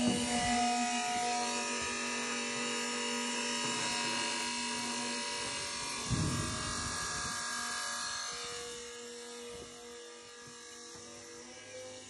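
Tuthill electric diesel transfer pump on a pickup-bed fuel tank running with a steady electric hum. A knock comes about six seconds in, and the hum grows fainter over the last few seconds.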